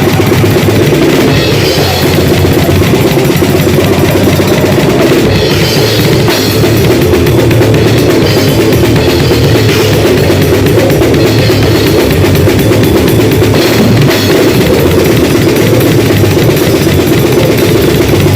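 A drum kit played loud and without a break, a dense, continuous pounding of drums and cymbals.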